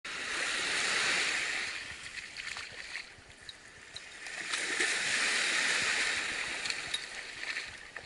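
Small waves washing in over a shallow sandy shore: two surges of wash, one peaking about a second in and the next around five seconds in, with a few faint ticks in between.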